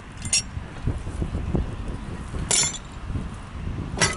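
Three sharp metallic clinks from a hand-thrown railroad switch stand as its lever and fittings are worked to line the switch, one near the start, one a little past halfway and one at the end.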